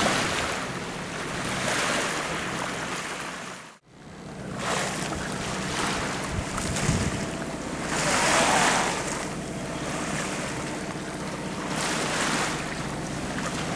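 Sea water rushing and splashing past a sailing yacht's hull under way, swelling every few seconds, with wind buffeting the microphone. The sound cuts out abruptly for a moment about four seconds in.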